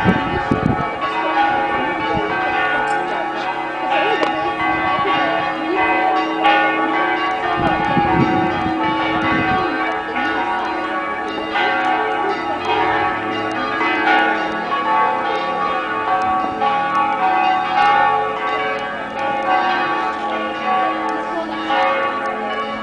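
Several church bells ringing at once. Their repeated strikes overlap and each tone keeps sounding, so the peal runs on without a break.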